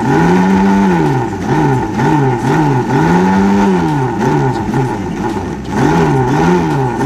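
Small electric mixer grinder blending mayonnaise in its steel jar, the motor speeding up and slowing down over and over so its hum keeps rising and falling in pitch.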